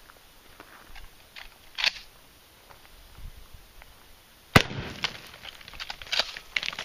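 A single 12-gauge pump shotgun shot, fired with 00 buckshot, about four and a half seconds in, followed by a scatter of small sharp crackles. A few faint clicks come before it.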